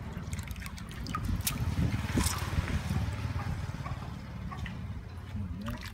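Water sloshing, trickling and dripping as hands squeeze and rinse bundles of fresh noodles in a large basin of water, with a brief louder splash about two seconds in, over a low steady rumble.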